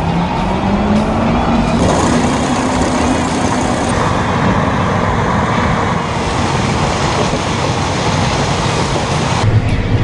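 John Deere S660 combine harvester running while harvesting corn. Its pitch rises over the first two or three seconds, then it holds at a steady, dense mechanical din of engine and header working through the stalks.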